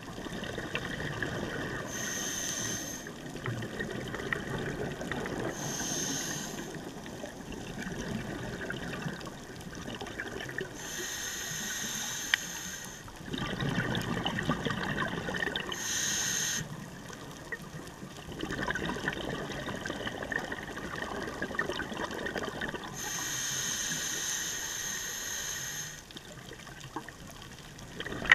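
Scuba diver breathing through a regulator, heard underwater: about five short hissing inhalations alternating with longer stretches of rumbling exhaled bubbles.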